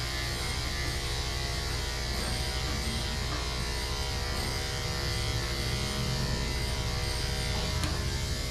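Electric dog grooming clippers fitted with a 7 blade, running with a steady buzz as they are passed through a shaved dog's thick coat.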